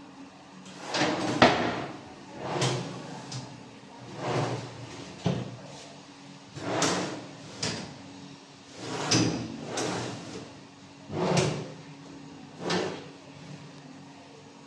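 Kitchen cabinet drawers with stainless-steel wire basket pull-outs being slid open and pushed shut again and again, about ten strokes in all, a few ending in a sharp knock.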